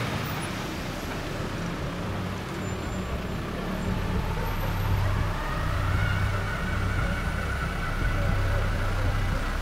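Steady city street traffic: cars and motorbikes running past, with a constant low engine rumble.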